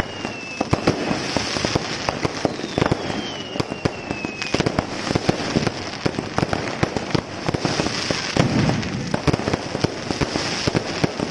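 Aerial fireworks display: a dense, continuous run of bangs and crackling bursts. Two whistles fall in pitch through it, one ending just under a second in and another from about three to four and a half seconds in.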